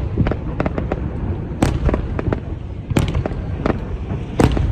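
Fireworks display going off: a continuous low rumble of shell bursts with sharp, loud bangs every second or so, the loudest near the start, about three seconds in, and near the end.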